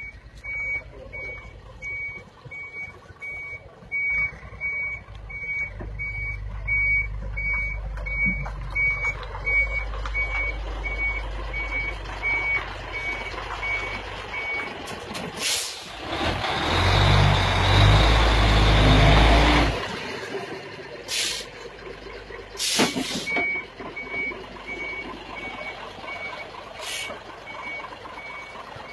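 Reversing beeper on a Mitsubishi Fuso crane truck sounding a steady high beep about twice a second over its diesel engine. In the middle the beeping stops for a few seconds while a loud rush of hiss and engine noise lasts about four seconds, and then the beeping resumes.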